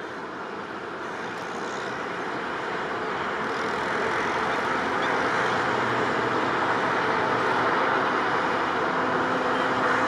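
Indian Railways passenger train approaching: a steady running noise of the train on the track, growing gradually louder as it comes nearer.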